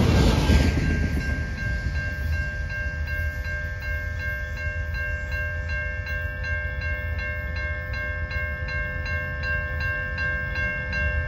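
Railroad grade-crossing bell ringing steadily at about three strokes a second while the gates are down. Under it, the rolling noise of the freight train's last car fades out in the first second or two.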